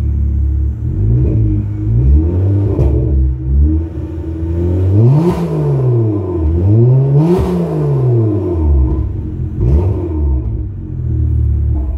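Cars with a modified exhaust, a Volvo XC90 2.9 twin-turbo and a Ford Mustang 3.8 V6, idling and being revved. There are quick blips about a second and three seconds in and again near ten seconds, and two long revs around five and seven and a half seconds whose pitch climbs and falls back to idle.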